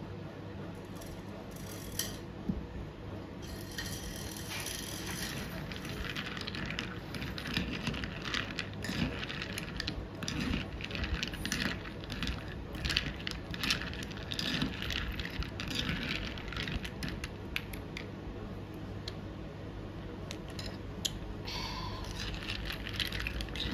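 Ice cubes clinking and rattling against a glass as black iced coffee is stirred: a long run of quick, irregular clicks that thins out near the end, over a steady low hum.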